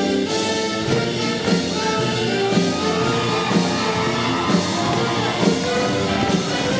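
Show choir's live band playing an up-tempo pop-rock instrumental passage with a steady drum beat between sung sections of the medley.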